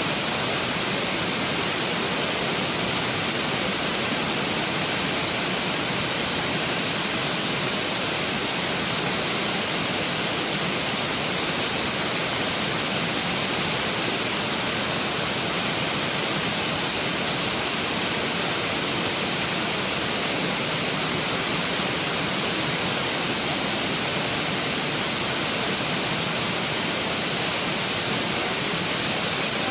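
Waterfall: a steady, even rush of water cascading down a long rock slope, unchanging throughout.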